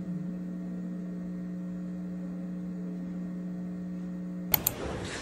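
Steady electrical hum with a few fixed low tones. About four and a half seconds in, two sharp clicks come, and a noisier, rustling background takes over.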